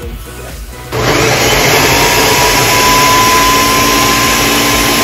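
Electric kitchen blender switched on about a second in, its motor running loud with a whine that climbs a little and then holds steady as it blends chunks of guava and pineapple with juice.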